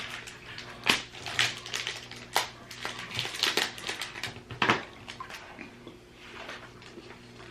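Crinkling plastic snack wrapper and snapping chocolate as a cookies and cream white chocolate bar is opened and broken: a run of sharp crackles and snaps, busiest in the first five seconds or so and then quieter.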